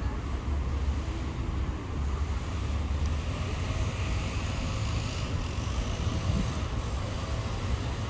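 Steady road-traffic noise of a city centre: a low rumble with an even hiss over it, without distinct events.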